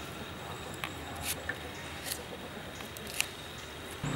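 Knife peeling and trimming the dry skin off a red onion: a few short, crisp scrapes and snips.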